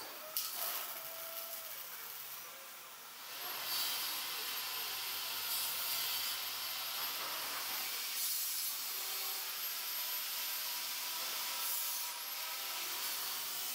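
Robot-held abrasive disc grinding the welded corner of a steel car door frame: a harsh scraping hiss with a thin high whine from the spinning disc. It starts about three and a half seconds in, after a quieter stretch that opens with a sharp click.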